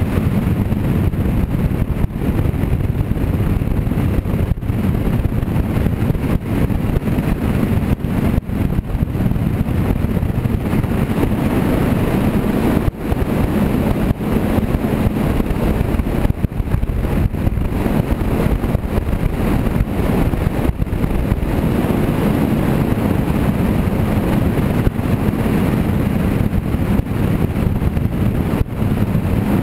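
Ranger bass boat running on its outboard motor: a steady rush of wind buffeting the microphone, with the low drone of the engine and hull underneath.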